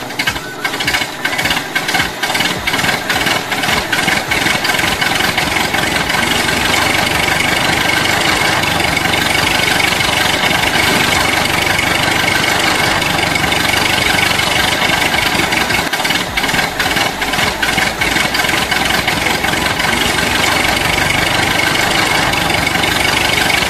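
Hard plastic wheels of a toy tractor and its trolley rolling over rough asphalt, a loud steady grinding rattle with many sharp clicks in the first few seconds.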